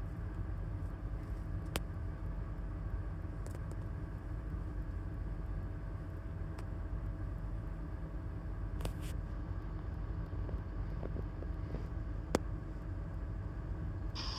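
Car engine idling, a steady low rumble heard from inside the cabin, with a faint steady hum above it and a few sharp clicks about two seconds in and near the end.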